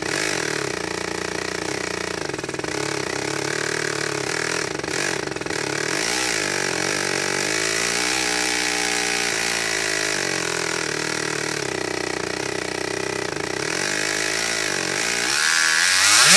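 LEGO boxer engine being spun by a high-speed brushless electric motor in an overspeed test: a loud, steady mechanical whine and rattle of the plastic pistons and crankshaft. The pitch wavers a little midway, and the noise swells over the last second.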